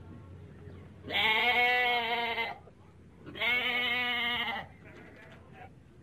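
Sheep bleating twice, each bleat long with a quavering pitch.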